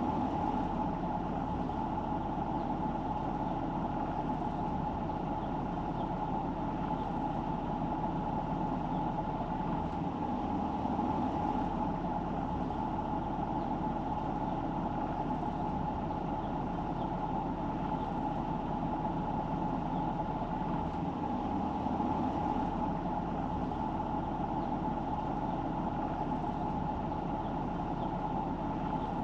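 Steady running noise of a car being driven, engine and tyre hum with a constant mid-pitched tone over it.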